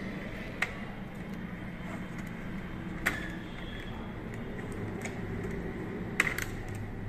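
Small sharp clicks of a laptop RAM module being pushed into its memory slot: three in all, the loudest a double click about six seconds in, over a steady low hum.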